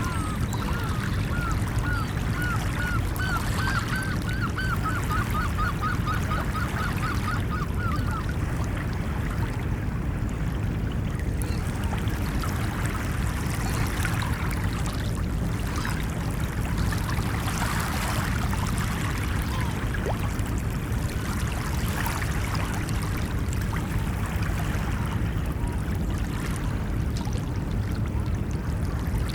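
Steady low rush of ocean surf. Over it a bird calls in a quick run of repeated notes that speed up and stop about eight seconds in.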